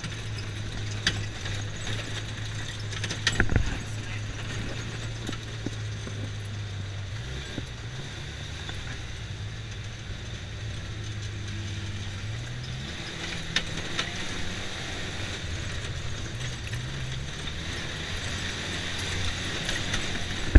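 Side-by-side off-road vehicle's engine running steadily while driving a dirt trail, its pitch shifting at around seven and twelve seconds in, with body rattles and a couple of sharp knocks over bumps.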